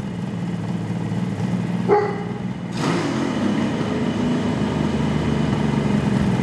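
Kawasaki H2 750 Mach IV's three-cylinder two-stroke engine running steadily, then revved and louder from a little under three seconds in. A short, sharp, high-pitched sound cuts through about two seconds in.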